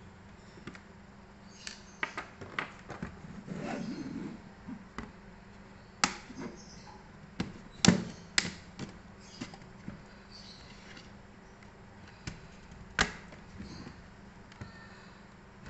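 Scattered sharp clicks and light taps of small laptop parts and tools being handled during a touchpad click-switch repair, with a short rustle about four seconds in and the loudest click near the middle.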